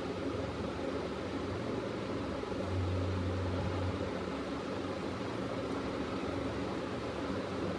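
A steady low mechanical hum with an even hiss, swelling briefly about three seconds in.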